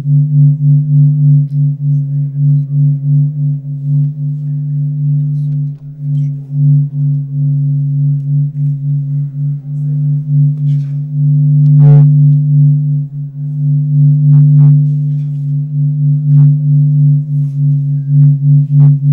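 Droning music for a dance performance: a steady low hum of a few sustained tones whose loudness wavers, with a few sharp clicks in the second half.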